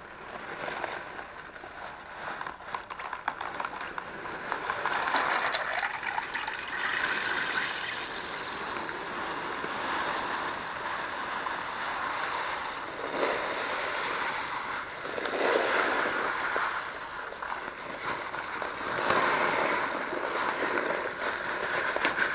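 Aquarium gravel being poured into a container of water for rinsing, with water splashing in several louder surges.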